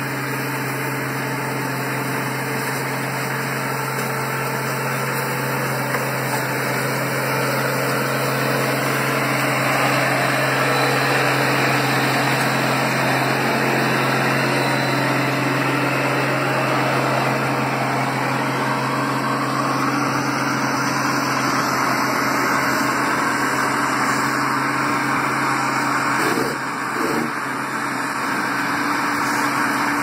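Diesel engine of an asphalt paver running steadily under load as it lays asphalt, growing somewhat louder as the machine passes close by, with a brief drop in level near the end.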